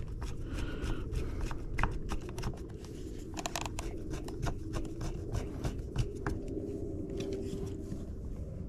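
Small plastic steering-wheel parts being handled and fitted by hand: irregular clicks, taps and light scrapes.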